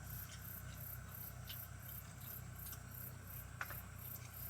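An insect chirping in a steady, very high-pitched pulse, about three chirps a second, over a low steady hum, with a single small click late on.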